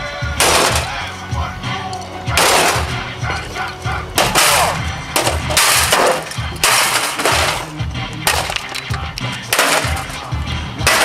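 Objects being smashed: a series of loud crashing hits, roughly one every one to two seconds, over music with a steady beat.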